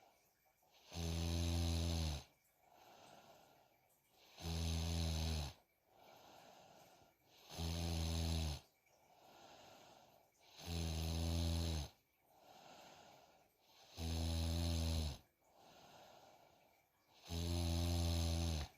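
A sleeping young girl snoring heavily: six loud, pitched snores, each about a second long and about three seconds apart, with a softer breath between each pair.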